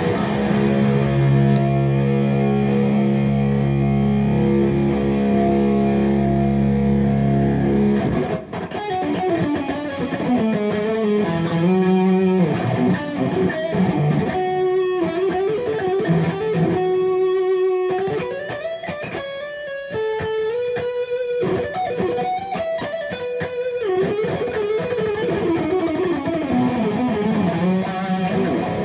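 Distorted electric guitar playing. Held chords ring for about the first eight seconds, then a single-note lead line follows, with pitch bends and vibrato.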